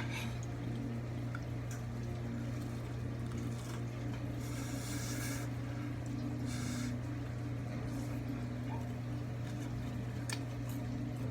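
Close-mic eating sounds of a hot Cheeto–coated fried cheese stick being bitten and chewed, with two short noisy bursts around the middle. A steady low hum runs underneath.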